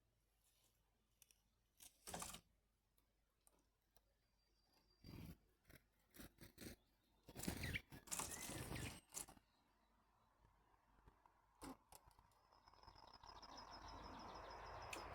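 Faint scattered sharp clicks and taps with a denser burst of rustling and clicking about halfway through, as squirrels and jays handle and crack peanuts. A few faint high bird chirps come in near the end.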